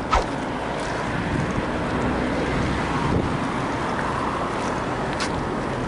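Wind rushing over the camera's microphone: a steady noise with no speech.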